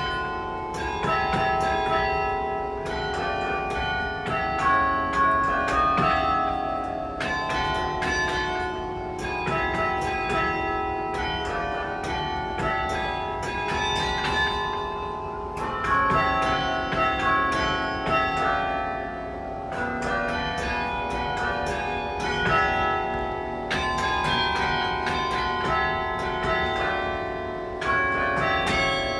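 Carillon in the University of Texas at Austin tower playing a slow melody with chords: bronze bells struck one after another, each note ringing on and overlapping the next over lower bells that hum beneath.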